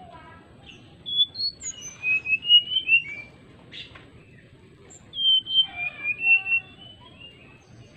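Brown-chested jungle flycatcher singing its fluty whistled song in two phrases, one about a second in and one about five seconds in, each a quick run of high clear notes that slide up and down.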